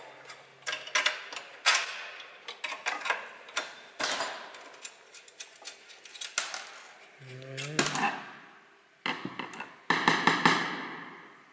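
Metal tools and parts clicking and clattering as hardware is taken apart, with a short rising whine of a small motor spinning up about seven seconds in and a denser burst of clatter near the end.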